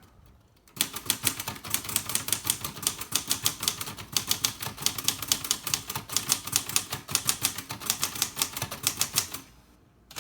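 Olivetti Lettera 32 manual portable typewriter being typed on at a fast, even pace: a quick run of sharp keystrokes striking the platen. It starts about a second in and stops shortly before the end, with one more click after the pause.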